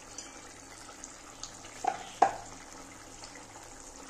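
Pieces of fried fish dropped by hand into a boiling curry in a metal kadai, giving a few short splashes and knocks about two seconds in, the last and loudest a sharp one. A faint bubbling hiss from the simmering gravy runs underneath.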